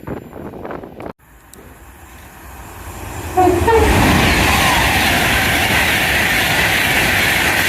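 A train running through the station at speed, its rush swelling and then jumping loud about three and a half seconds in and holding steady. A short horn note sounds as it arrives.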